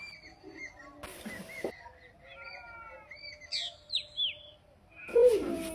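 Small birds chirping, with short twittering notes and a few quick falling whistles. A brief rush of noise comes about a second in, and a louder voice-like call begins near the end.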